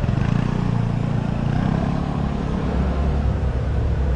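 A delivery motorbike's small engine running close by with a low, steady rumble as it rides off ahead.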